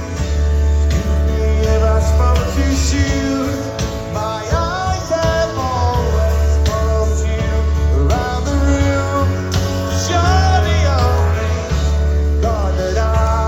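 Rock band playing live, with a melodic line that bends and glides in pitch over a steady, heavy bass and drums.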